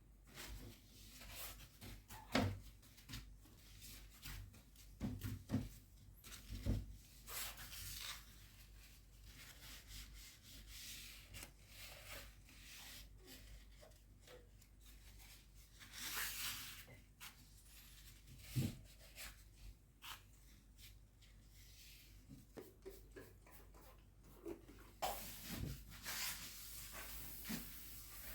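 Scattered knocks and clicks with stretches of rubbing or scraping, like objects being handled and worked by hand.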